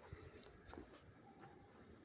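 Near silence outdoors, with a few faint soft ticks.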